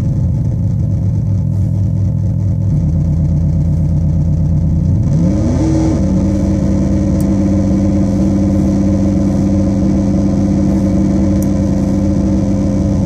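Metsään Dirty Drone Anarchy synthesizer, its three interacting triangle-wave oscillators droning through a speaker: a low, buzzing, shifting drone whose pitch glides upward about five seconds in, then settles into a steady buzz with a harsher, brighter top.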